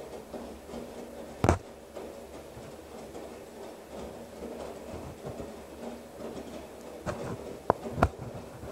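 Girbau commercial front-load washer tumbling a load of clothes in sudsy water during a hot wash, with a steady hum. Sharp knocks from the tumbling load about a second and a half in, the loudest, and three more near the end.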